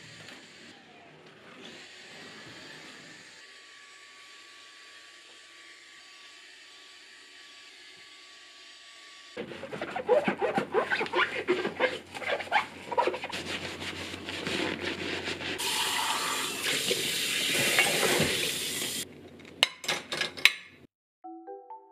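Dishes being hand-washed at a stainless steel sink, starting about nine seconds in after a quiet stretch of faint room hiss: ceramics and glassware clinking and scrubbed in suds, a tap running for a few seconds, then a few sharp clinks as dishes are set into a wire drying rack.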